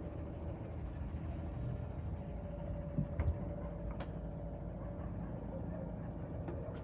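Tractor engine running steadily with a faint steady whine, while a reversible plough is turned over on the tractor's hydraulics; a few light metallic clicks come about three and four seconds in and again near the end.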